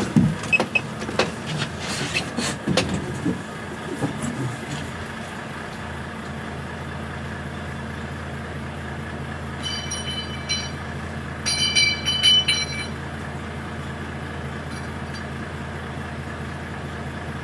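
HGV lorry's diesel engine idling steadily, heard from the cab, with a few knocks and clicks in the first few seconds. About ten and again about twelve seconds in come two short bursts of high-pitched beeping.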